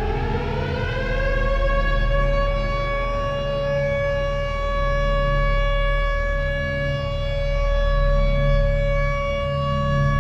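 Tornado warning siren winding up: one tone rises in pitch over the first second or so, then holds a loud, steady wail. A low steady hum runs underneath.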